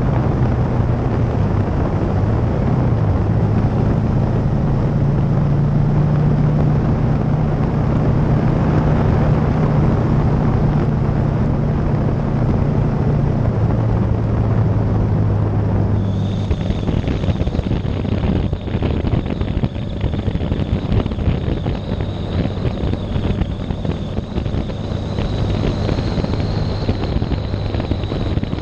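Motorcycle engine running steadily at cruising speed, heard from a camera mounted low on the bike, with wind rushing over the microphone. About halfway through, the engine note eases and a high, steady whine comes in.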